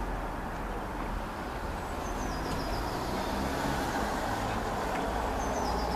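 Steady low outdoor rumble, with a small bird chirping twice: a short run of high notes stepping downward each time, about two seconds in and again near the end.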